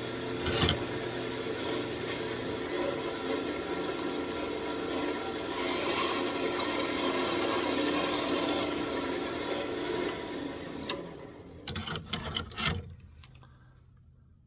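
Walnut being cut through on a running wood lathe: a steady scraping, rasping cut over the lathe's hum. Near the end it dies away into a few sharp clicks and knocks as the piece comes free.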